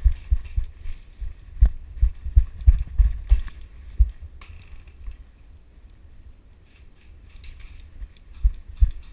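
Footfalls of a player running, jolting a body-worn camera: irregular low thuds, about three a second for the first four seconds, then a quieter stretch and a few more thuds near the end.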